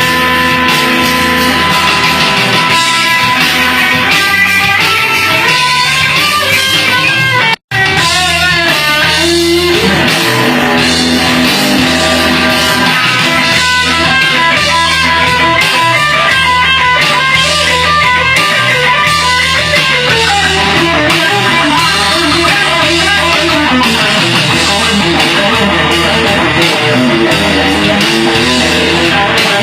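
Guitar solo played over a steady backing rhythm, the music cutting out for an instant about seven and a half seconds in.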